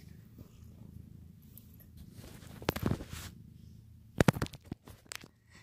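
Handling noise from a phone held against a cat: rustling about two and a half seconds in, then a quick cluster of sharp knocks and taps about four seconds in, over a faint low rumble.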